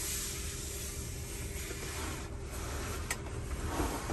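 Quiet background hiss with a faint steady hum, and a single light click about three seconds in.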